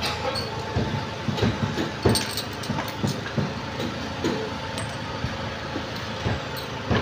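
Irregular clinks and knocks of small metal parts and tools being handled at a Fuso 6D16 diesel cylinder head, over a steady background noise.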